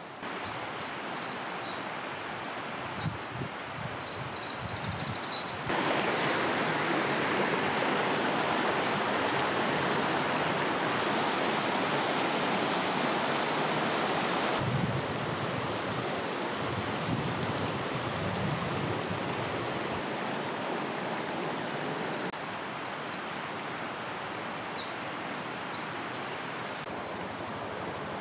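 Mountain stream rushing over rocks and small cascades, a steady rush of water that is louder from about six seconds in to about fifteen seconds in. Small birds chirp high over it in the first few seconds and again near the end.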